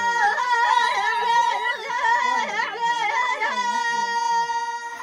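Women's voices singing a wavering, ornamented melody over one steady held note.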